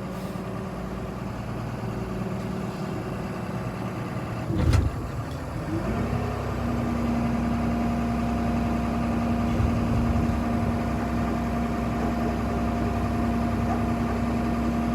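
Vehicle engine running steadily, with a loud knock about four and a half seconds in. The engine then speeds up to a higher steady note and holds it while a rear-wheel-drive van stuck in snow is pulled out.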